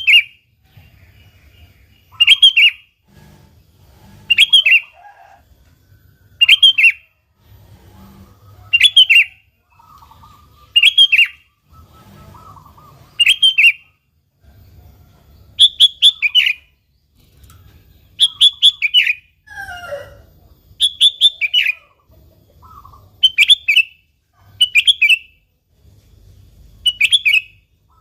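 Sooty-headed bulbul (kutilang) calling: a short, bright call repeated about every two seconds, with fainter soft notes between the calls.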